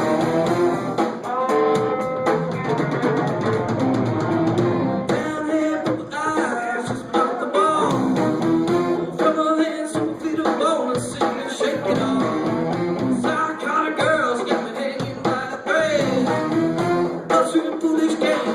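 A live rock band playing, with guitar prominent over bass and drums.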